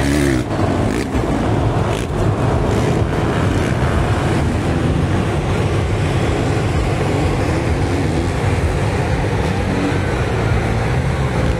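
Motocross dirt bikes racing around the track, their engines running hard, with the pitch rising and falling a few times as riders rev through the course.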